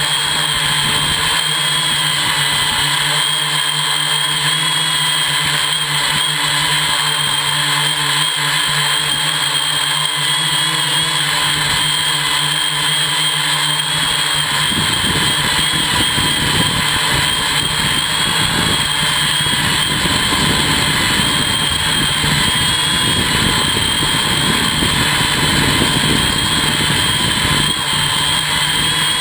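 Electric hexacopter's brushless motors and propellers running steadily in a hover, heard from on board: a steady whine that wavers slightly in pitch, with a low hum. A low rumble joins about halfway through.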